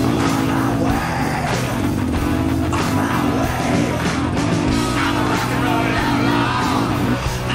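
Rock music with electric guitar and singing, playing steadily.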